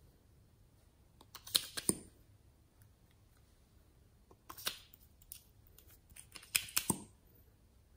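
Plastic lip gloss tubes being handled: short clicks and scrapes as the capped applicator wand is pulled out of the tube and pushed back, in three clusters, about one and a half seconds in, mid-way and near the end.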